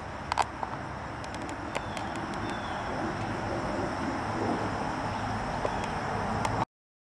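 A few sharp clicks, the loudest a close pair about half a second in, over a steady hiss that slowly grows louder. The sound cuts off abruptly near the end.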